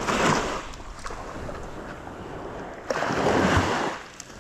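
Sea surf washing in on the shore: two swells of wave noise about three seconds apart.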